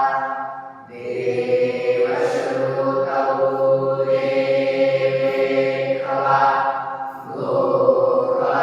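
Chanted Hindu recitation (path): voices chanting verses in long held lines on steady pitches, with short breaks about a second in and again near the end.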